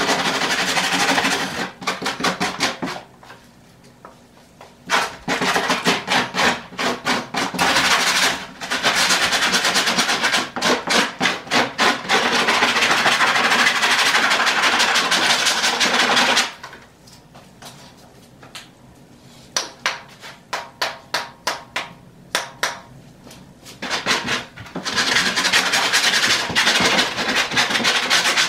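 Quick back-and-forth scraping of a hand tool against a car headliner board, rasping off the crumbling old foam backing. It comes in long runs of rapid strokes, with two pauses where only a few scattered strokes are heard.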